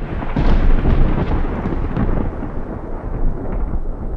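Thunder sound effect: a rolling rumble of thunder that comes in suddenly, is loudest in the first second or so, and slowly eases off.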